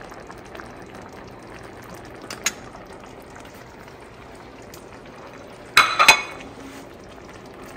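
A pot of garden egg stew simmering, with a steady soft bubbling. There is a light click about two and a half seconds in, and a short clatter of sharp knocks against the pot about six seconds in, the loudest sound here.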